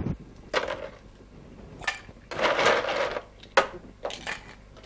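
Ice cubes dropped into a stainless steel cocktail shaker tin: a clattering rattle twice, about half a second in and again past the middle, with single sharp clinks in between.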